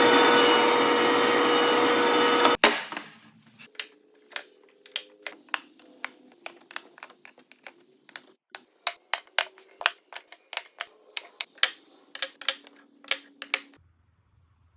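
A power tool runs steadily, then cuts off about two and a half seconds in and spins down. After that comes an irregular run of sharp clicks and light knocks: router bits being set one by one into a wooden holder.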